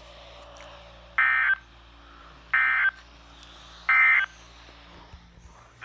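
Three short bursts of Emergency Alert System SAME data tones, each about a third of a second long and about 1.3 s apart. This is the end-of-message (EOM, 'NNNN') code that closes an EAS alert after the spoken warning.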